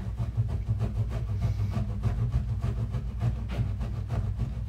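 A block of cheese grated on a metal box grater: a rhythmic scraping of about three strokes a second.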